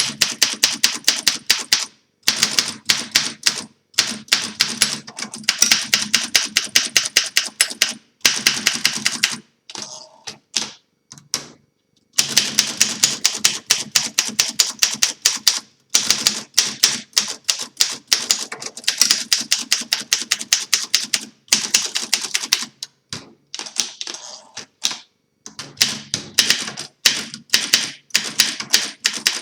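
1951 Olympia SM1 manual portable typewriter being typed on: fast runs of sharp key strikes, several a second, broken by short pauses, with a lighter stretch of softer mechanical sounds about ten seconds in.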